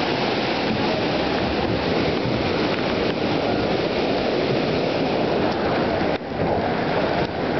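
Brown floodwater from a swollen river rushing and churning over the pavement, a steady loud rush of water, dipping briefly about six seconds in.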